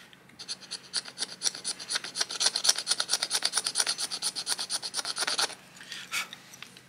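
A stone burin scraping a groove into bone in rapid, repeated strokes, a dry rasping that stops about five and a half seconds in, followed by a few fainter scrapes.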